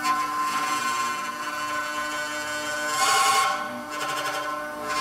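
CNC router milling a block with a small end mill: a steady whine of several tones with the hiss of the cut on top, the cutting noise swelling louder about three seconds in.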